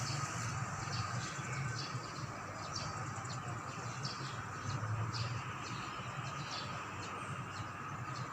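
A low, steady drone or hum of unknown origin, the 'strange noise in the sky', over a faint steady tone, with small birds chirping repeatedly, about two chirps a second.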